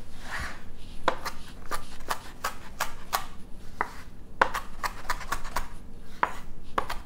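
Kitchen knife chopping a pile of fresh herbs (parsley, basil, tarragon and mint) on a wooden cutting board: a series of sharp knife strikes, about two to three a second.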